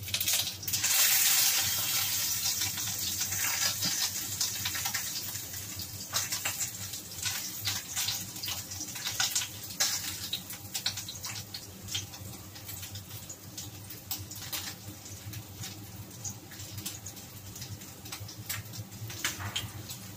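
Pork cheek sizzling in a covered wok, a steady hiss full of small crackling pops. The sizzle surges loudest about a second in, then eases to a softer, even crackle.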